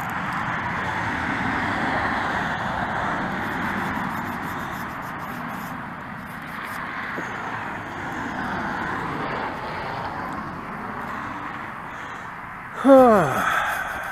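Steady rushing outdoor background noise. Near the end comes one short, loud call that falls in pitch.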